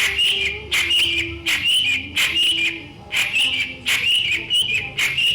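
A songbird singing a short, high whistled phrase over and over, a little more than once a second, each phrase starting sharply.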